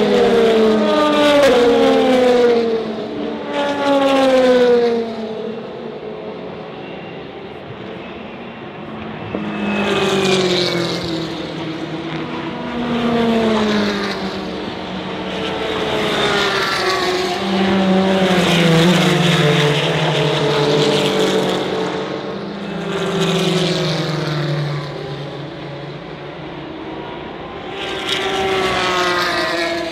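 Race cars passing at speed one after another, about eight in turn, each engine's pitch dropping as it goes by.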